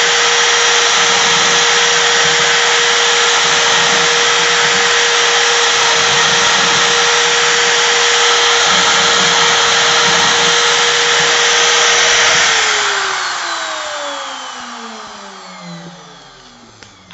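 CNC router spindle running at a steady high whine, then switched off about twelve seconds in and spinning down, its pitch falling as it fades out.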